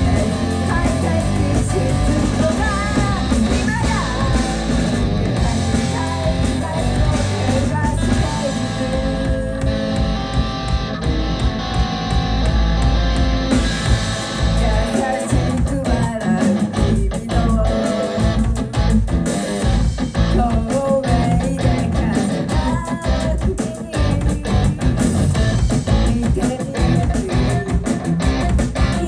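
Live rock band playing loud, with distorted electric guitar, bass, drums and a singing voice; the drums turn to rapid hits in the second half.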